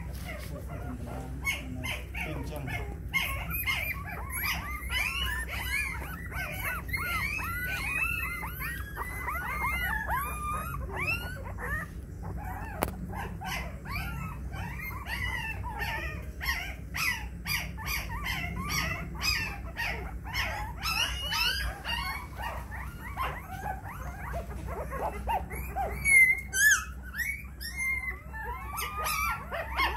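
A litter of young puppies whimpering and squealing in many short, high-pitched, overlapping cries, with a few louder squeals near the end.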